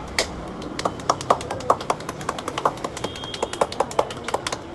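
A barber's hands rapidly striking a bald scalp in a head massage, palms pressed together so each blow lands as a sharp slapping pop, several a second in an uneven rhythm.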